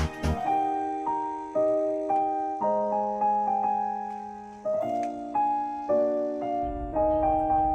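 Background music: a gentle piano melody of single notes and chords, each struck and left to fade.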